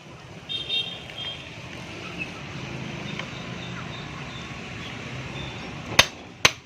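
Steady low background rumble, then two sharp metal clinks about half a second apart near the end, from hand tools and screws while the scooter engine's shroud is being unscrewed.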